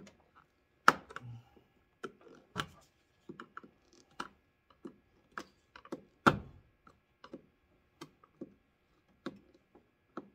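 Irregular clicks and knocks of small parts and a hand tool as keeper washers are pressed onto a new windshield washer fluid pump. Two sharper knocks stand out, about a second in and about six seconds in.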